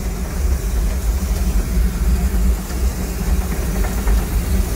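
Steady low rumble from an oil-fired 1882 Baldwin narrow-gauge steam locomotive standing in steam, heard from its tender, with a constant hiss over it.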